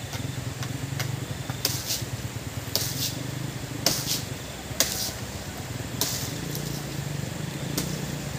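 Irregular sharp knocks, about ten of them and some in quick pairs, over a low steady rumble.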